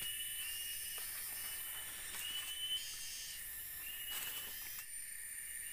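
Rainforest insect chorus: a steady high-pitched hiss and whine, with a short rising chirp repeating about once a second. A brief rustle of leaves or sticks about four seconds in.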